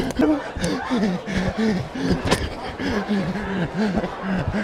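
People laughing and chuckling, mixed with some indistinct talk.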